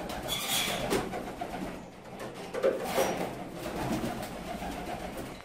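Domestic meat pigeons cooing, several low coos, with two brief sharp noises about half a second and three seconds in.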